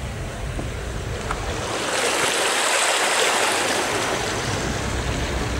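Floodwater splashing and rushing against the side of a car as it drives through a flooded street, heard from inside the cabin. The rush swells to its loudest about halfway through and then eases, over the low rumble of the car.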